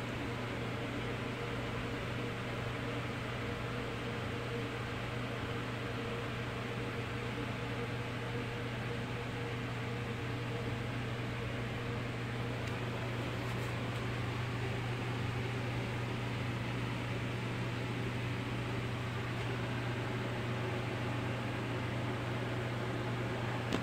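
Steady low hum with an even hiss throughout: room tone, with nothing else happening.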